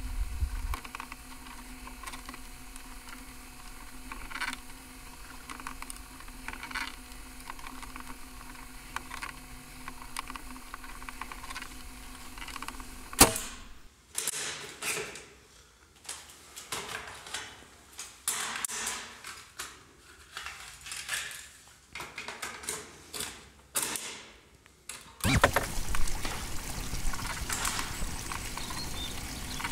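Steady low hum and hiss with a few faint ticks, then a sharp clack of a cassette deck's piano key being pressed about 13 seconds in. About ten seconds of irregular short crackly bursts with near-silent gaps follow, then another sudden clack and a steady noisy hiss.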